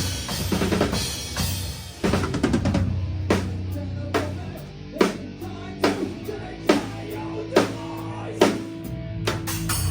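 Live metalcore band heard from right at the drum kit: fast, busy drumming with cymbal wash for the first two seconds, then a slow, heavy beat of single big hits a little under a second apart over sustained distorted guitar and bass.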